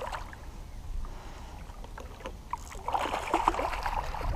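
Live carp, hooked on a rig as catfish bait, splashing and thrashing at the surface of shallow water at the end of the line, with the splashing getting louder from about three seconds in. A low steady rumble runs underneath.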